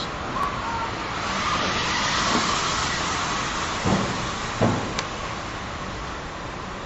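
A car driving across an EMSEAL SJS seismic expansion joint: tyre noise swells and fades, with two soft, low thumps about three-quarters of a second apart, about four seconds in, as the wheels cross the joint. The joint is quiet, absorbing the impact sound instead of the clatter of a metal cover plate.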